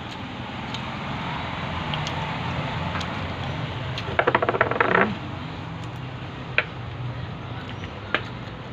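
Steady street and eatery background noise with a low hum, broken just past the middle by a loud rapid stuttering sound lasting about a second. A couple of sharp clinks of utensils against a dish come in the second half.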